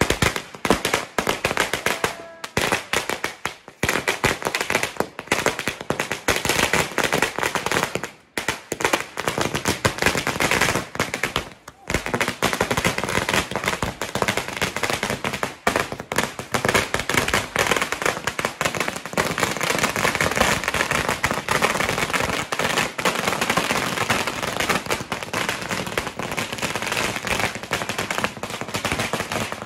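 A long string of firecrackers (a ladi) going off in a rapid, continuous run of small bangs, with brief pauses about two, eight and twelve seconds in.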